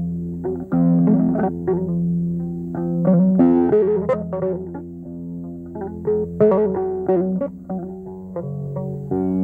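Electric guitar played solo in the Mauritanian Hassani style, picking a quick melody in the lleyn mode over ringing low notes.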